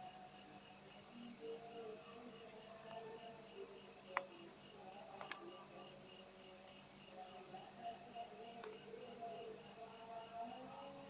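Crickets trilling steadily at night, faint. Two short high chirps come about seven seconds in, and there are a couple of sharp clicks shortly before.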